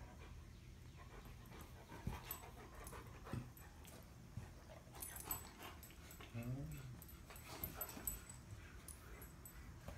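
Two dogs play-wrestling on a leather couch: soft scattered thumps and scuffling, with one short, low rising-and-falling dog vocalization about six and a half seconds in.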